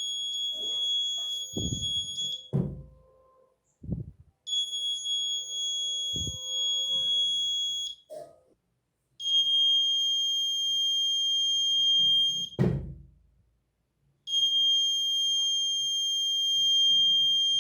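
A 5-volt active piezo buzzer in a homemade door alarm sounds a steady high-pitched tone four times, each lasting three to four seconds and cutting off sharply between. Several knocks sound during the first stretches, and a loud thump comes as the third tone stops.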